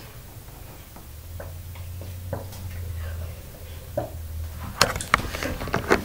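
Water being gulped from a plastic bottle: a few soft swallowing clicks spaced out while drinking, then a cluster of sharp crackles and knocks near the end as the plastic bottle is lowered and handled.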